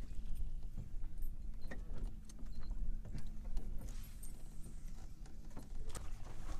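Wind rumbling on the microphone, with scattered clicks and light knocks from fishing tackle being handled as a fish is reeled in and the landing net is picked up; one sharper click comes near the end.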